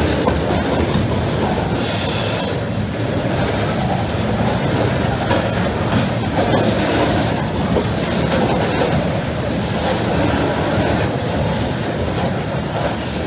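Loaded freight cars of a long, heavy CSX train (flatcars carrying steel coils) rolling past close by. Their steel wheels rumble steadily on the rails, with irregular sharp clicks.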